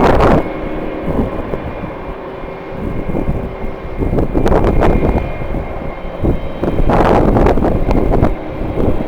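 Jet airliner engines running with a steady whine and low rumble, under strong wind buffeting the microphone in repeated gusts.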